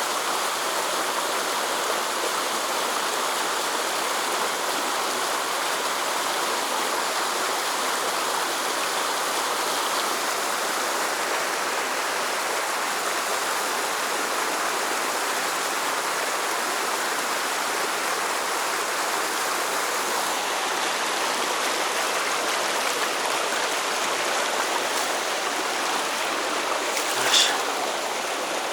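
Mountain stream water flowing and rushing steadily over rocks, with one brief, short sound near the end.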